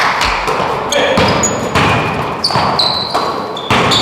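Basketball game play: the ball bouncing and thudding on the court several times, with short high squeaks in between.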